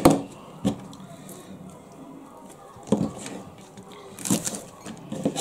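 Kitchen knife cutting spring onions on a plastic cutting board: a sharp knock of the blade on the board right at the start, then a few separate knocks and slicing sounds.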